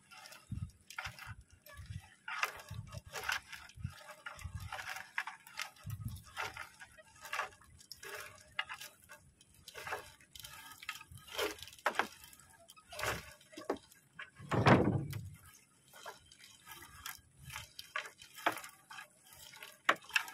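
Seawater dripping and splashing off a wet monofilament fishing net as it is hauled hand over hand into a small boat, in many irregular small patters, with one louder thud about fifteen seconds in.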